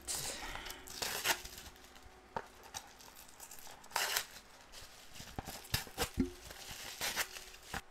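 Plastic bubble wrap crinkling and tearing as it is pulled off a small cardboard box, in irregular handling bursts with a few sharp crackles.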